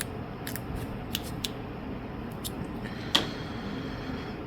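A few light clicks and taps of small parts and tools being handled on a repair bench, with one sharper click about three seconds in, over a steady low hum.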